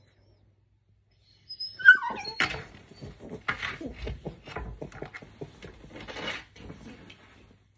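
Husky puppy gives one short, high gliding whine about a second and a half in, then several seconds of rustling and scuffling as it moves about on the bedding.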